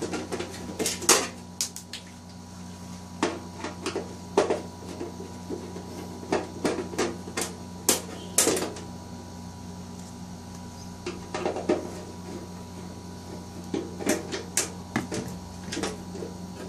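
Screwdriver backing the screws out of a metal panel board cover, with hands handling the loosened cover: irregular metal clicks, taps and scrapes in short clusters.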